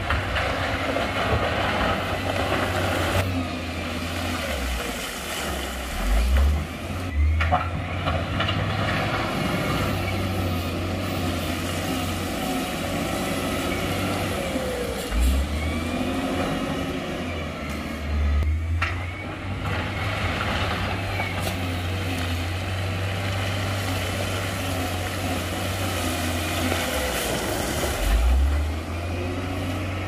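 Heavy diesel earthmoving machinery working: a steady low engine drone that swells now and then, with wavering higher squeals over it and a couple of sharp knocks.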